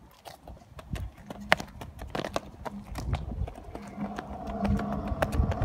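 Quick, irregular footsteps on asphalt, as of someone walking or jogging along the street.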